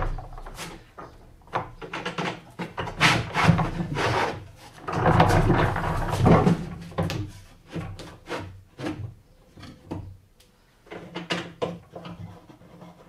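A plywood support arm is pulled up out of a rolling workshop cabinet and set to height. Wood rubs and scrapes on wood, with scattered knocks.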